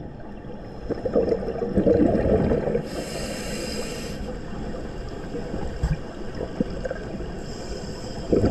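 Scuba diver breathing through a regulator underwater: a burst of exhaled bubbles burbling, then the hiss of an inhale, and again a hissing inhale followed by bubbles near the end.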